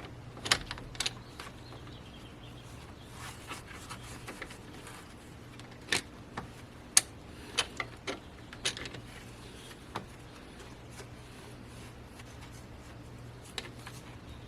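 Irregular sharp clicks and metallic knocks from hand tools and engine parts being handled during alternator and pulley reinstallation, over a steady low hum.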